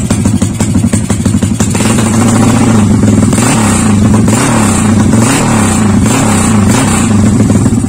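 Modified Yamaha LC135 single-cylinder four-stroke, bored to a 66 mm piston, running through a 28 mm-header aftermarket exhaust with its carburettor not yet tuned. It pulses at a low, lumpy speed, then from about two seconds in is revved up and down again and again, about once a second.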